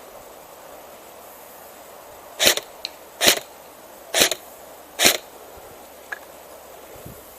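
Airsoft gun firing four single shots, a little under a second apart, each a sharp crack with a short hiss.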